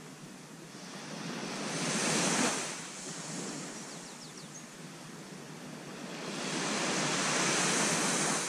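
Surf on a sand beach: waves breaking and washing up the shore, the hiss swelling twice, briefly about two seconds in and longer from about six seconds in.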